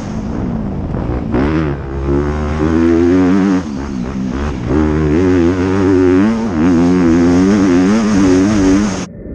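Honda CRF250R motocross bike's single-cylinder four-stroke engine, heard from the rider's helmet, revving up and dropping back again and again as the rider works the throttle and gears around the track. The sound cuts off abruptly near the end.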